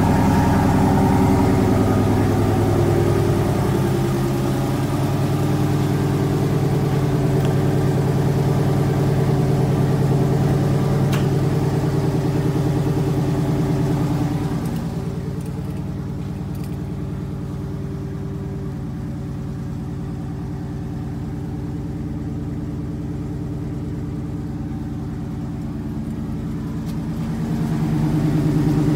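Dodge Charger SRT 392's 6.4-litre HEMI V8 idling steadily through a Borla cat-back exhaust after a cold start, with no revving. It gets quieter about halfway through and louder again near the end.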